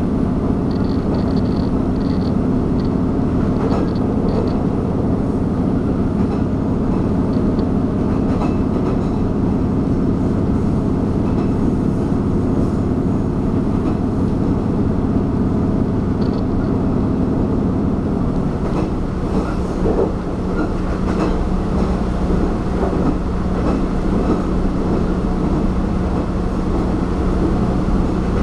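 Diesel train running, heard from inside the carriage: a steady rumble of engine and wheels on rails. About two-thirds of the way through, the hum settles to a lower steady note, with scattered clicks of the wheels over the track.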